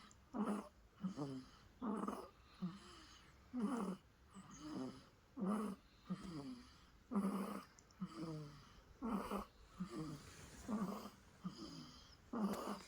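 Baby snoring in sleep: a louder rasping snore alternating with a softer one, about one pair every two seconds, regular throughout.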